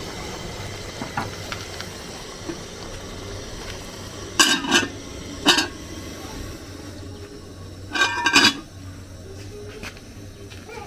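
A metal spoon clanking against a cooking pot in three loud clusters of ringing clinks, over a steady background hiss.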